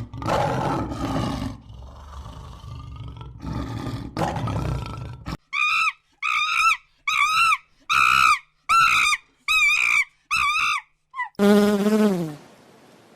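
Animal calls: a rough roar lasting about five seconds, then a run of about eight short, high-pitched calls, then one lower call that drops in pitch near the end.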